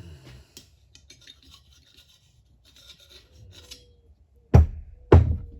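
Scraping and rubbing of metal motorcycle fork parts being handled, then two sharp knocks about half a second apart near the end.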